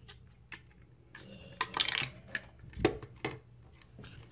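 Hard plastic clicking and knocking as the guards, case and stand of a Gillette Fusion ProGlide Styler are handled and fitted together: scattered short clicks, a quick cluster a little past halfway, and the sharpest knock just before the end.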